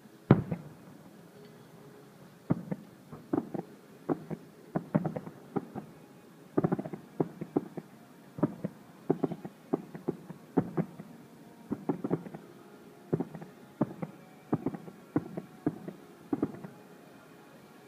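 Fireworks shells bursting: an irregular run of sharp bangs, about one or two a second, each with a short echoing tail. The first bang, just after the start, is the loudest.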